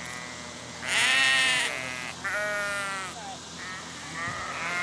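A flock of black-faced sheep bleating, four wavering calls in turn, the loudest and longest about a second in.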